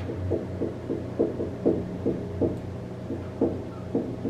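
Marker writing on a whiteboard: a quick run of short strokes, about three a second, over a steady low hum.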